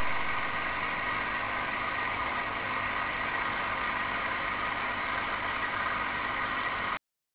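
A steady mechanical noise like a motor running, even throughout, that starts abruptly and cuts off suddenly near the end.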